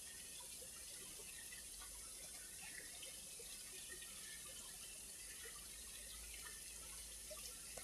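Faint trickling water running steadily, with small scattered drips and gurgles.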